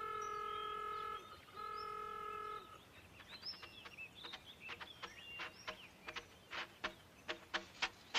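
A vehicle horn sounds two honks of about a second each, a steady two-note chord. Birds then chirp, and short repeated musical notes come in near the end.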